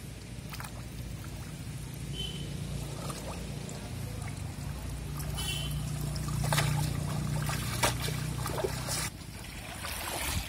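Water pouring and dripping off a wet cast net as it is hauled up out of shallow water, with splashes and sloshing as the net is lifted, loudest a little past the middle.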